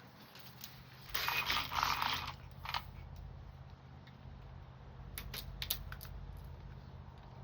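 Hand work on a metal window screen in its frame: a rough scrape lasting about a second, starting about a second in, then a few light sharp clicks and taps, over a steady low hum.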